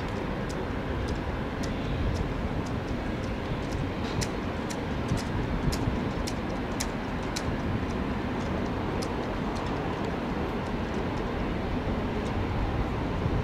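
Distant jet airliner engines heard as a steady low rumble, with scattered sharp high ticks over it.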